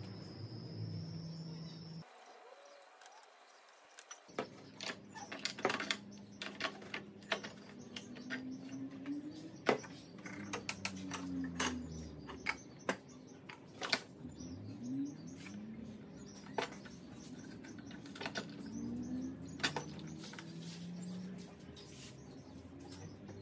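Steel bar clamps being tightened on a freshly glued pine panel: scattered light metal clicks and clinks as the screw handles are turned and the clamp parts knock together. Birds call faintly in the background with repeated low gliding notes.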